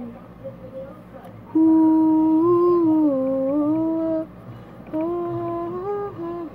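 A girl humming a tune in two long phrases, with held notes that step down and back up.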